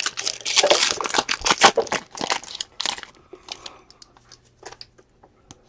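Foil trading-card pack wrapper crinkling and rustling in the hands, dense for about three seconds, then thinning to scattered faint ticks and rustles as the cards are handled.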